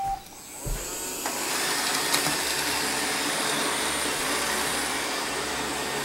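Roomba 675 robot vacuum starting a cleaning run on carpet. The last note of its start-up tune fades at the very start, and its vacuum and brush motors spin up about a second in, then run steadily.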